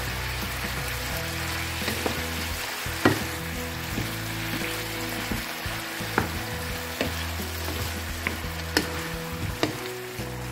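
Chicken and vegetables sizzling in a hot frying pan while they are stirred with a wooden spatula, with a few sharp knocks of the spatula against the pan, the loudest about three seconds in.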